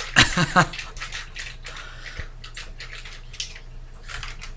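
Water draining from an opened plastic tofu package into a stainless steel bowl, followed by light clicks and rustles of the package being handled. A short bit of voice comes right at the start.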